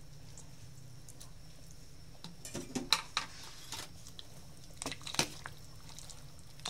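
A metal ladle clinking against a stainless steel pot while stirring fish soup, with a few sharp clinks about two to three seconds in and more around five seconds.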